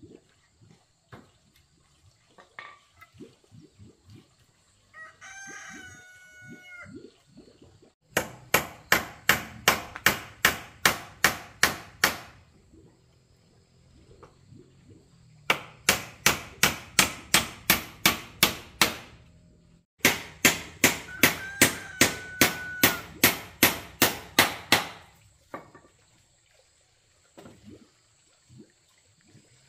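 Hammer driving nails into a wooden railing panel in three fast runs of strikes, about four a second. A rooster crows once before the first run and again faintly during the last.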